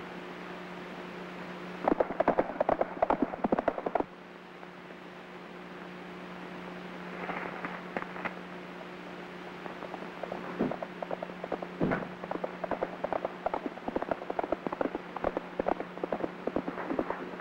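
Clattering knocks and clicks, a dense loud run for about two seconds near the start and scattered again through the second half, over a steady low hum.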